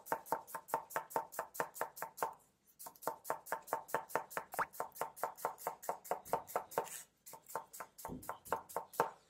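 Chef's knife slicing a cucumber on a wooden cutting board: quick, even cuts about six a second, with a short pause about two and a half seconds in and slower cuts near the end.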